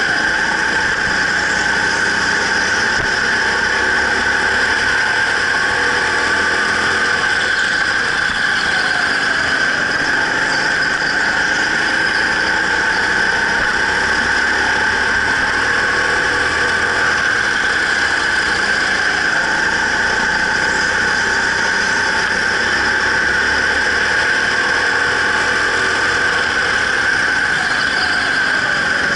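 Racing go-kart running laps at race pace: a steady high-pitched whine with faint rises and falls in pitch.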